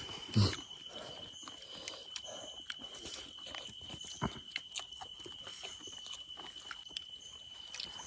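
Crickets or other night insects trilling on one steady high note, with scattered small clicks and rustles of hands handling something and a brief grunt about half a second in.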